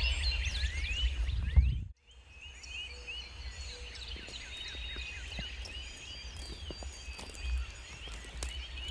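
Songbirds singing in a dawn chorus, many overlapping chirps and trills. For the first two seconds a low rumble on the microphone sits under them and breaks off abruptly at a cut.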